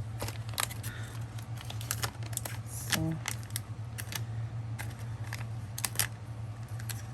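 Small glass cabochons clicking and tapping against each other in a quick, irregular series of sharp clicks, the sound showing they are glass. A steady low hum runs underneath.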